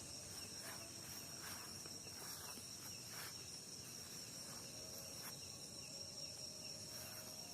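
Night-time insect chorus: a steady, high-pitched, faint ringing drone, with scattered short chirps over it.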